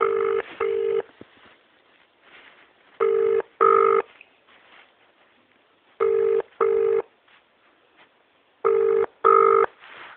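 British telephone ringing tone heard by the caller over the phone line: four double rings about three seconds apart, each two short beeps of a steady low tone. The call is ringing unanswered before voicemail picks up.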